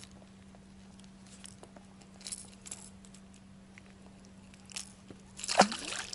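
Short clicks and rattles of a wobbler's treble hooks being handled while a caught perch is unhooked, then a splash in the water beside the boat near the end.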